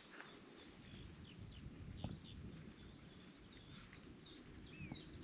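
Faint birdsong: a string of short chirps and whistles, thickest in the second half, over a low steady background rumble.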